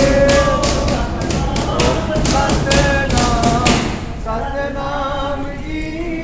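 Gurbani kirtan accompaniment: a tabla beating a steady rhythm of about four strokes a second under held melodic notes. The drumming stops about four seconds in, leaving the held notes alone and quieter.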